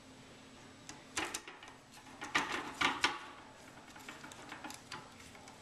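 Hand screwdriver and small screws being worked on a quadcopter frame: a few sharp clicks and clatters of tool and hardware against the frame plates, loudest about two and a half and three seconds in, over a faint steady hum.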